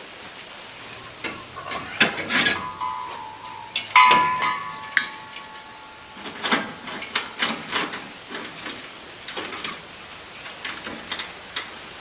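Metal clanks and knocks of a steel propane cylinder being handled and set in place under a gas grill. Two clanks, about two and a half and four seconds in, ring briefly. These are followed by a run of lighter clicks and taps as the regulator fitting is worked onto the tank valve. The tank is being swapped because the old one ran out of gas.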